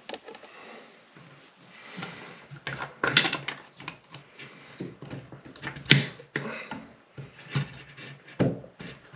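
Irregular clicks and knocks of a bathroom sink's pop-up drain stopper being worked loose by a gloved hand, the sharpest about six seconds in.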